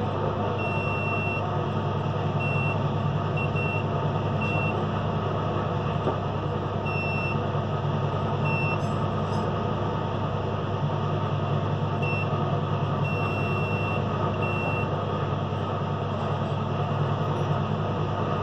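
A multimeter's continuity/diode-test beeper sounds in short high beeps, on and off about ten times at irregular gaps and once for about a second, as the probes touch component pins on a Mercedes fuse box circuit board. Under it runs a steady low background hum.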